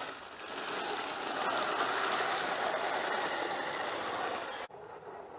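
HG P802 8x8 RC truck's electric motor and gear drivetrain running as it drives over ground, a steady whirring hiss that stops abruptly near the end.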